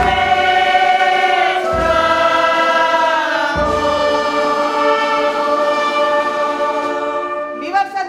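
Music: a choir singing long held chords that change about every two seconds, with a low bass swell at each change.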